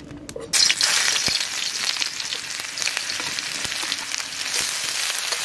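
Chopped onion hitting hot mustard oil in a karai, bursting into a loud sizzle about half a second in, then frying with a steady sizzle.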